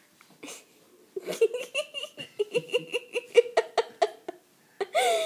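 High-pitched rhythmic laughter: a run of short 'ha' pulses, about four a second, starting about a second in and lasting some three seconds.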